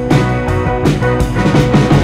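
Background music with a steady drum beat over sustained guitar-like tones.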